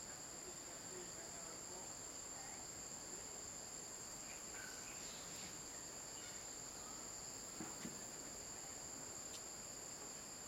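Steady, high-pitched chorus of insects, with a faint knock about three-quarters of the way through.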